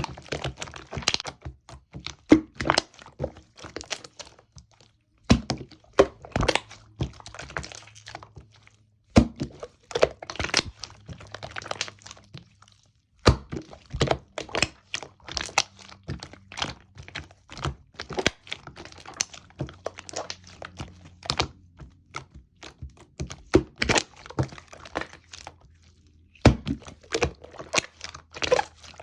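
Slime being squeezed, poked and stretched by hand, giving irregular runs of sharp pops and clicks with short pauses between them.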